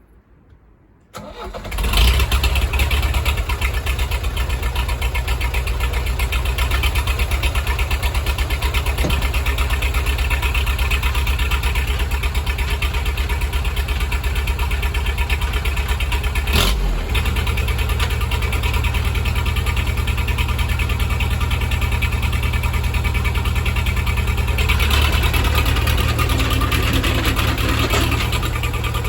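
Case 310F bulldozer's diesel engine comes in suddenly about a second in, then runs steadily with a fast, even rhythm as it warms up after a cold start. One sharp click sounds about halfway through.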